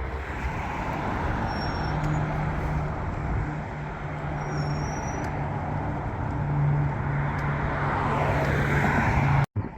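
Road traffic going by, a steady noisy rush with a low engine hum held for most of the stretch, cut off abruptly near the end.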